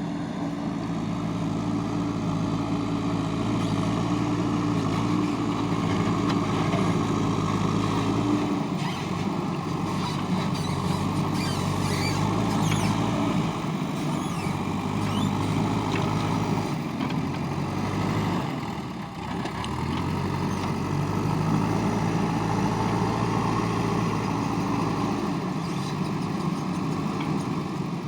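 A JCB backhoe loader's diesel engine runs steadily while working. Its pitch changes about 8 seconds in and again around 18 to 20 seconds, with a short dip in loudness. Faint high squeaks come through in the middle.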